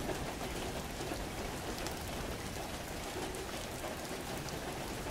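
Steady rain with scattered fine drop patter, heard after the song has ended.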